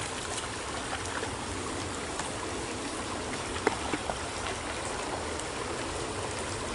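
Small stream running with a steady rushing trickle, with a couple of light clicks about halfway through.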